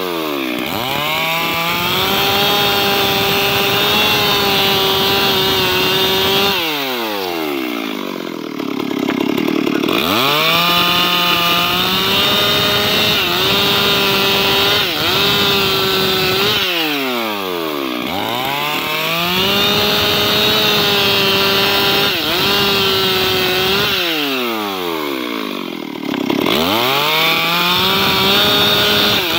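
Stihl two-stroke chainsaw running at full throttle as it cuts into a mahogany log. Three times the throttle is let off and the pitch falls toward idle, then the saw revs back up, with brief pitch dips as the chain takes the load.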